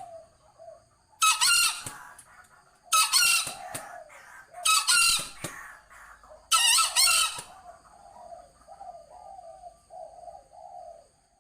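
Chicken calling: four loud, harsh squawks about two seconds apart, with softer low clucks between them and running on near the end.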